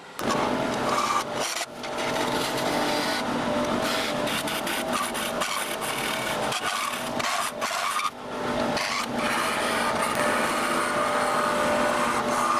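A piece of yew spinning on a wood lathe with a tool or abrasive scraping steadily against it, broken by a couple of brief pauses.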